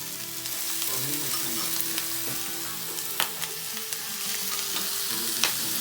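Chopped vegetables and sauce sizzling as they are stir-fried in a hot pan, with sharp clicks of the utensil against the pan about three seconds in and again near the end.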